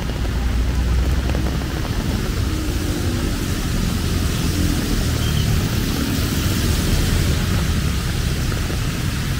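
Heavy rain falling on an umbrella, a steady hiss, over a low rumble of passing traffic.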